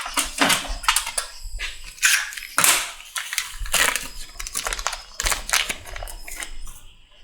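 Hand-handling noises: a run of short clicks and crinkling as a new O-ring is picked up and worked into place on a transmission part.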